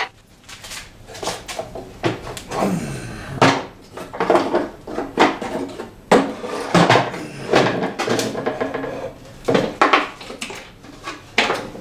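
Metal XY axis table being handled and lifted out of a wooden crate: irregular knocks and clunks of metal against wood, with a short scrape about three seconds in.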